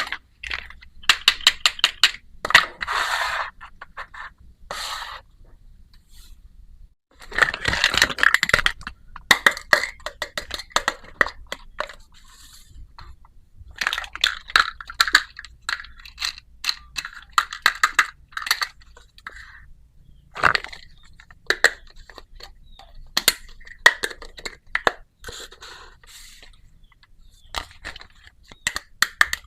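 Small plastic toy pieces clicking and tapping against each other while plastic packaging is crinkled and torn by hand, in several bursts of rapid clicks and rustling.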